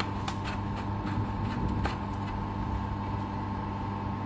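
Black plastic filler cap being screwed onto the water tank's inlet, giving a few light clicks in the first two seconds. Under it runs a steady machine hum.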